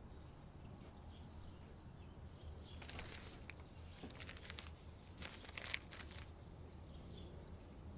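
Faint crinkling and rustling of paper being handled, mostly in two stretches about three and five seconds in, over a low steady hum.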